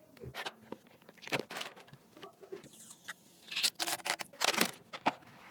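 Hands handling computer parts: irregular clicks, taps and short rustling scrapes, loudest a little past halfway through.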